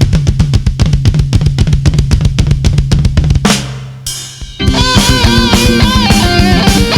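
Progressive rock music: a fast drum-kit pattern over a held bass note breaks off about three and a half seconds in, then after a short gap the full band comes back in with a bending lead melody.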